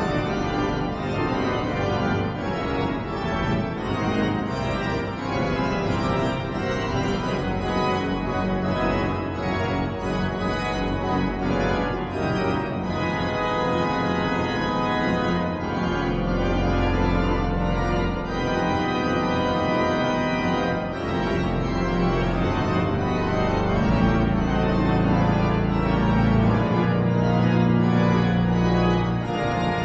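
Cathedral pipe organ playing loud, full chords over fast-moving notes. From about halfway, long deep pedal notes are held beneath the chords.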